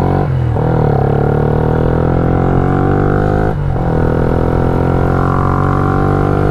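Yamaha Y15ZR's freshly rebuilt 150 cc single-cylinder four-stroke engine being ridden under acceleration, its exhaust drone climbing in pitch. It breaks and drops briefly at an upshift about half a second in and again about three and a half seconds in.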